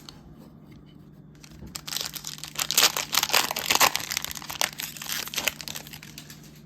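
Plastic foil wrapper of a trading card pack being torn open and crinkled: a dense run of crinkling starting a couple of seconds in, loudest in the middle and dying away near the end.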